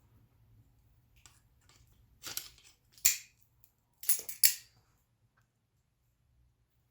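A few sharp metallic clinks and scrapes of small forged 1/4-inch steel hooks being handled and set down together. There is a short cluster a little over two seconds in, a loud clink at three seconds, and two or three more just after four seconds, over a faint low hum.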